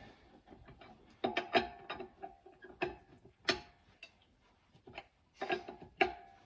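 Tire iron clinking on the wheel's lug nuts as they are tightened: a few sharp metallic knocks and ticks with a short ring, spaced irregularly with pauses between.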